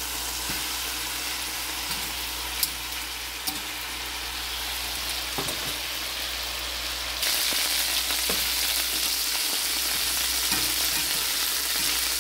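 Chicken drumsticks sizzling as they pan-fry in hot olive oil, browning on each side, with a few sharp clicks of metal tongs against the pan as the pieces are turned. The sizzle gets louder about seven seconds in.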